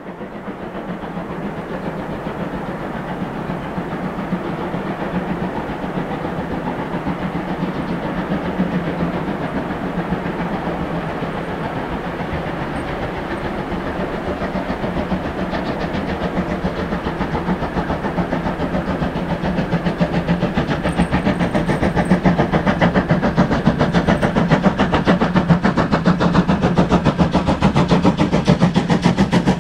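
Steam locomotive working hard under load, its exhaust beats coming in a rapid, even rhythm and growing steadily louder as it draws closer.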